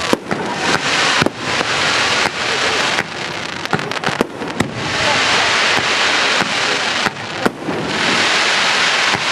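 Fireworks display: aerial shells bursting in a rapid string of sharp bangs, several a second at times, over a continuous hissing crackle that swells louder twice in the second half.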